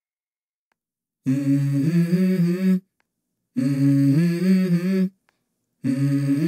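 Background music: after about a second of silence, a new track opens with a hummed vocal melody in three phrases separated by short pauses.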